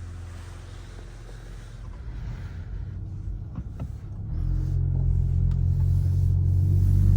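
Volkswagen Golf 8 GTI's 2.0-litre turbocharged four-cylinder petrol engine running while driving, fairly quiet at first, then about four seconds in getting louder and slowly rising in pitch as the car pulls harder.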